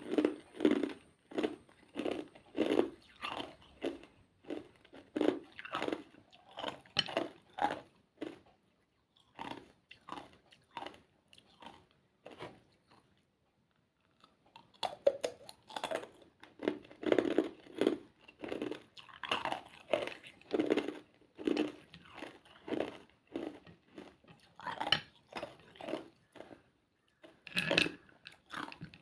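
A person chewing and crunching ice: a steady run of crisp crunches, about two a second, with a pause of a couple of seconds partway through before the chewing starts again.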